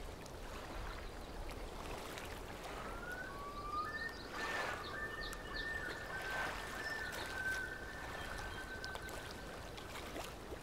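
Faint steady background hiss, with faint thin whistling tones that rise and hold for several seconds in the middle; no loud tool noise.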